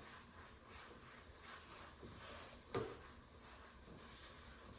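Faint rubbing strokes of a cloth wiping across a wooden tabletop, with one short knock a little before three seconds in.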